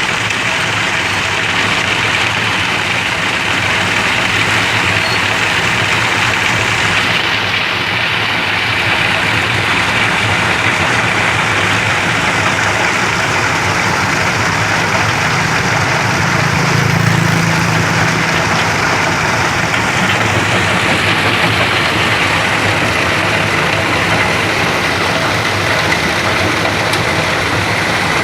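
Sand grinding machine running steadily: a dense, continuous rushing noise over a low engine hum, which swells briefly about two-thirds of the way through.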